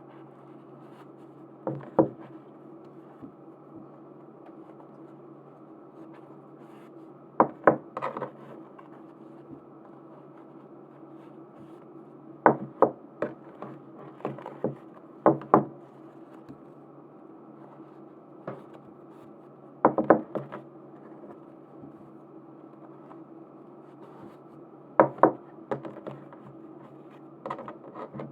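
Sharp clicks and small knocks from hard objects being handled and set down on a tabletop as merchandise is unpacked. They come in short clusters every few seconds over a steady low hum.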